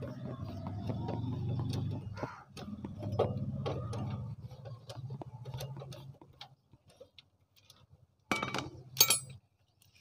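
A 10 mm T-handle spanner turning out the gearshift stopper-plate bolt on a Honda CD70 engine: a run of small metallic ticks and clicks. Near the end comes a brief, louder metal clinking as the bolt and stopper plate come free.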